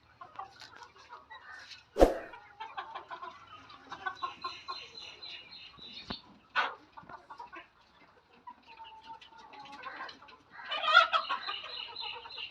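A flock of Golden Misri hens clucking, with a louder burst of calls near the end. Two sharp knocks cut through it, one about two seconds in and a second just past the middle.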